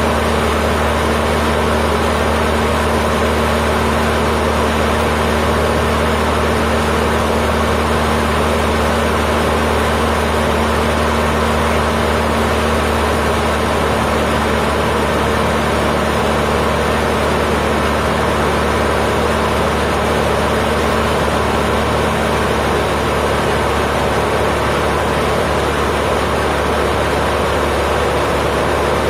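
Cessna 152's four-cylinder Lycoming engine and propeller drone steadily, heard from inside the cockpit. A higher hum within the drone fades out about three-quarters of the way through.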